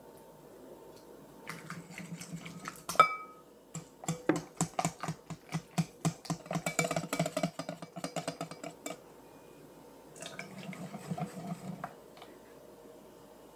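A wire whisk mixing cream cheese batter and eggs in a glass bowl. There is one sharp clink against the glass about three seconds in, then about five seconds of quick, regular strokes at around four a second, and a softer stretch of stirring near the end.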